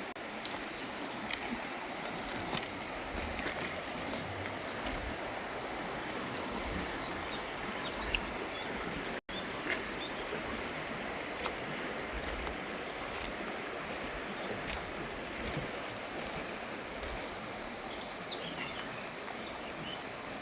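Mountain river rushing steadily over rocks, with scattered short bird chirps above it. The sound cuts out for a split second about nine seconds in.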